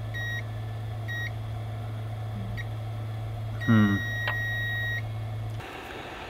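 Multimeter in continuity mode beeping as its probes touch the board's display line: a few short beeps, then one long beep about three and a half seconds in. The beep means a path to ground, so the line is still shorted after two capacitors and the chestnut came off. A short vocal sound comes with the long beep, over a steady low hum that stops near the end.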